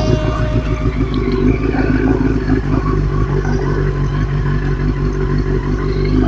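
Yamaha R6 sport bike's inline-four engine running steadily while riding along the road.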